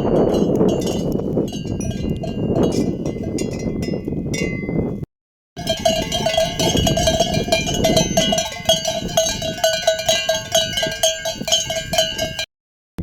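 Many sheep bells clinking and jangling together as the flock moves, with a deeper bell ringing over and over in the second half. The sound cuts out for a moment about five seconds in and again near the end.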